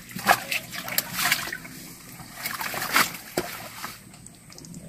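Hands splashing and scooping in shallow muddy water and mud, several sharp wet splashes over the first three and a half seconds, then quieter.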